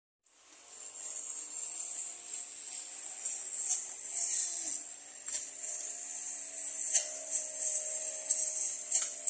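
Background music fading in after a short silent cut, with tambourine jingles over held notes.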